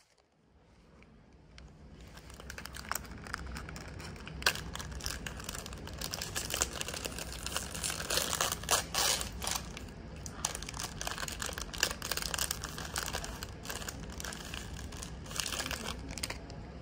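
Thin plastic snack wrapper crinkling and crackling as it is handled and opened, growing louder over the first few seconds.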